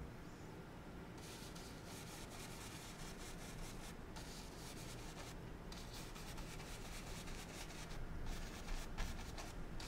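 A 1-inch bristle brush scrubbing and swirling oil paint on a wet canvas, in stretches of a few seconds with short pauses between strokes. A couple of light knocks near the end.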